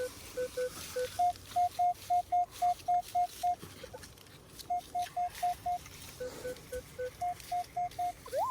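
Metal detector target tones from a repeatable signal: short beeps about four a second in runs as the coil is swept back and forth, mostly a higher tone with some lower ones, pausing about halfway through. A brief rising-and-falling tone sounds at the very end.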